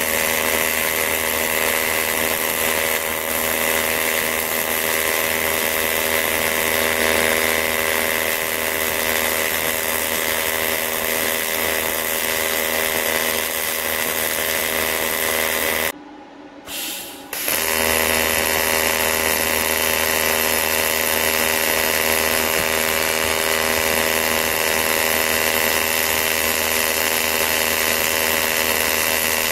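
AC TIG welding arc on aluminium, a steady loud buzz. It cuts out for about a second and a half past the middle, then the arc is struck again and the buzz resumes.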